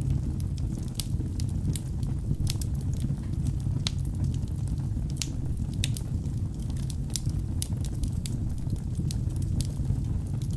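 Log fire burning in a fireplace: a steady low rumble of flames with frequent, irregular sharp crackles and pops from the burning wood.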